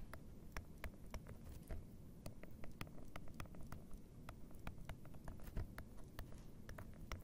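Stylus tapping and scratching on a tablet screen during handwriting: faint, irregular small clicks, several a second.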